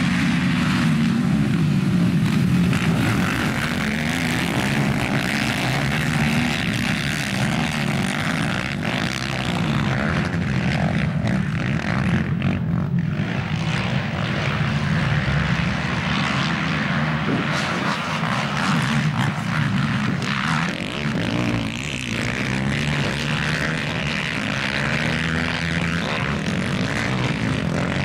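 Several racing quad bikes' engines running hard, rising and falling in pitch as they rev and shift.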